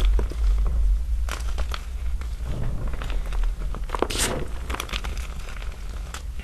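Small chunks of gym chalk crushed by hand in loose chalk powder: scattered soft crunches and small, subtle snaps, with a louder crunch about four seconds in.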